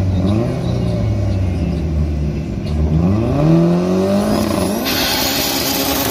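A drag-racing sedan's engine idles at the start line with a short blip, then revs up hard about three seconds in and holds high revs. Near the end a loud hiss-like screech joins as the car launches.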